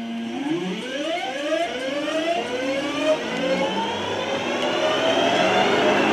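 Class 323 electric multiple unit pulling away from a standstill. Its traction equipment gives a whine that climbs in a series of overlapping rising steps as it accelerates, over a growing rush of wheels on rail.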